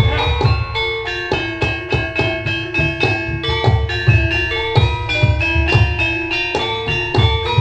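Javanese gamelan music accompanying a horse dance: tuned metal keys and gongs struck in a steady, even pulse with ringing tones, over regular low drum beats.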